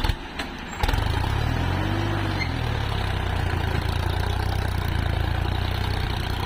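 Sonalika DI-50 tractor's diesel engine running, jumping suddenly louder about a second in and then running steady, with a brief rise and fall in pitch soon after.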